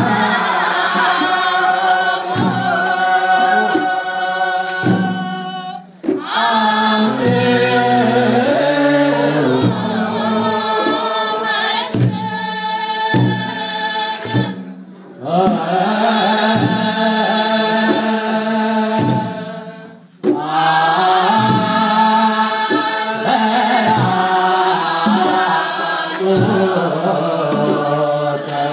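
Ethiopian Orthodox congregation singing a wereb hymn together, with sharp drum strikes beating under it. The singing breaks off briefly between phrases, about six, fifteen and twenty seconds in.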